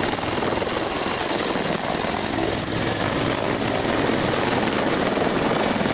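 Helicopter sound effect: a steady, even rush with a thin high whine over it, cutting in suddenly.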